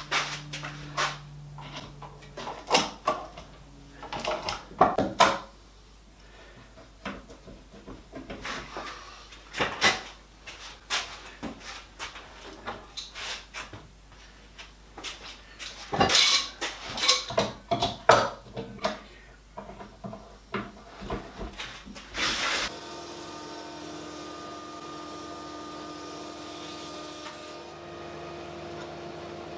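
Repeated knocks and clatter of bar clamps and wood being handled as a freshly glued panel is clamped up. About three quarters of the way through the sound changes to a steady machine hum with a few held tones.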